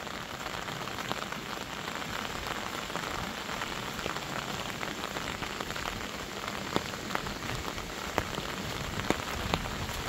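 Steady rain falling on wet grass and a dirt path, with a few sharper drop ticks in the second half.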